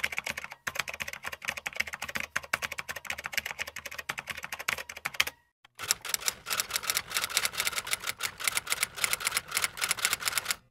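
Rapid clicking of keys being typed, in two stretches with a short pause a little over five seconds in.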